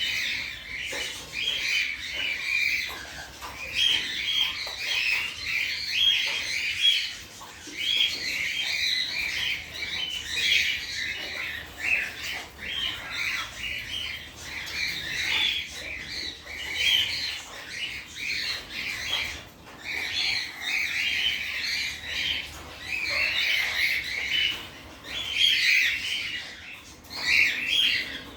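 Gouldian finches calling: a continuous chatter of short, high calls, with dips in activity here and there.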